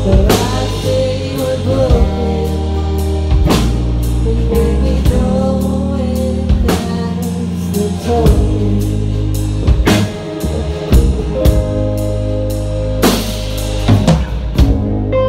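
Live band playing a song: drum kit, electric bass, acoustic and electric guitars, with a wavering melodic line over a steady beat.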